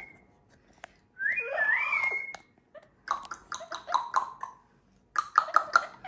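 Amazon parrot whistling: a rising whistle that levels off into a held note about a second in, followed by two runs of quick, clicking chatter.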